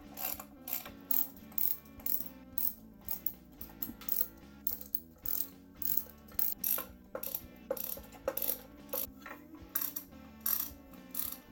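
Hand ratchet with a socket clicking in quick back-and-forth strokes, about twice a second with brief pauses, as the intake manifold bolts are run down snug before final torquing.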